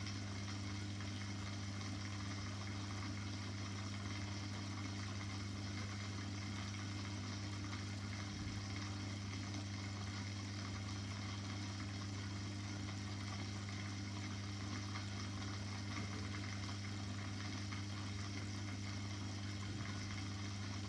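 Aquarium pump running steadily: a constant low hum with a hiss of moving water over it.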